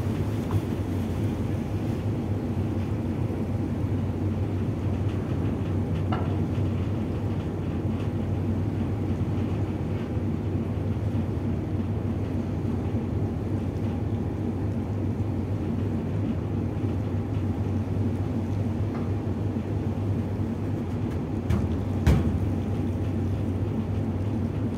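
Tugboat's diesel engines running steadily while it tows on a taut line, a deep, unchanging drone. A single sharp knock stands out about 22 seconds in.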